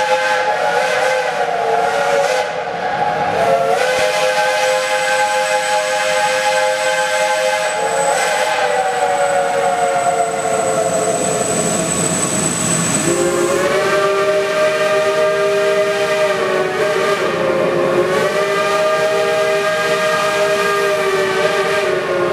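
Steam whistles of geared logging locomotives (Shays and a Climax) blowing long, continuous blasts that sound several notes at once. The pitch shifts and steps several times as whistles start, stop and overlap.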